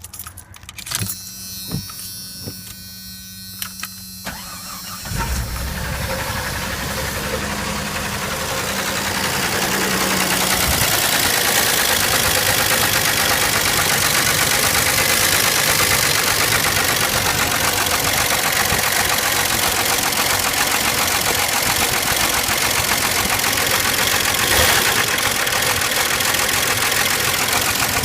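1989 Jeep's Renix-era 4.0 straight-six is started, catching about five seconds in after a few clicks and a steady hum, then runs with a knock, grown louder by about ten seconds in. The knock is bad enough that the owner is replacing the engine.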